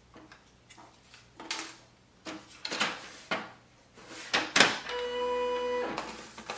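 Plastic clicks and knocks as the document-feeder cover of a Pantum M6559NW laser printer is handled and shut. A steady pitched tone, about a second long, follows about five seconds in.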